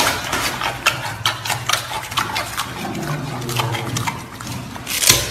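Giant panda chewing a raw carrot: a rapid, irregular run of crunches and crackles.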